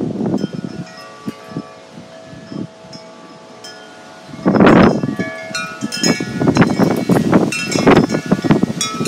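Wind chimes ringing in gusty wind, their many tones struck over and over. About four seconds in, a strong gust hits, its rushing noise louder than the chimes.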